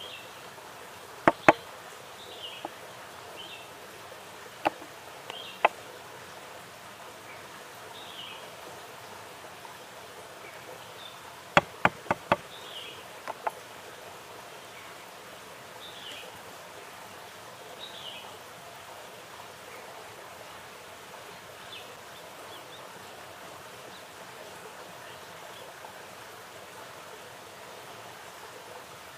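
Sharp wooden clacks of small spice bowls being handled on a wooden board: a pair about a second in, single knocks a few seconds later, and a quick cluster of four around twelve seconds. Behind them run a steady outdoor hiss and short, falling high chirps repeating every second or two.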